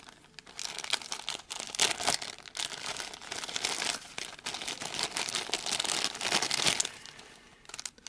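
Clear plastic packaging bag crinkling and rustling in a dense, irregular run as hands pull it open and off the adapter; it dies down near the end.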